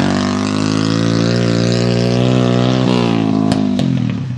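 Honda 50 mini bike's small four-stroke single-cylinder engine running hard at steady high revs, then the revs drop away about three seconds in, with a couple of sharp knocks as the bike goes down on the grass.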